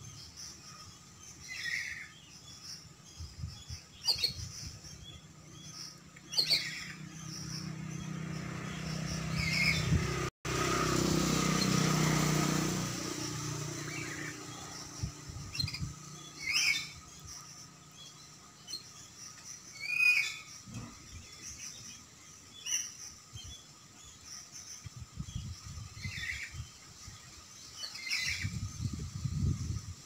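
Oriental magpie-robin giving short, sharp chirps every few seconds. Just after ten seconds in, a loud rushing noise starts suddenly and fades out over a few seconds.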